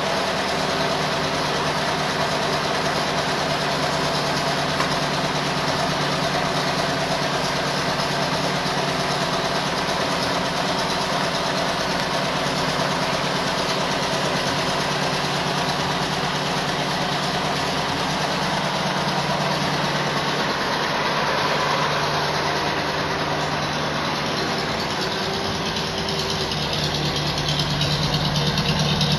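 1934 Packard Eight's straight-eight flathead engine idling steadily, a little louder near the end.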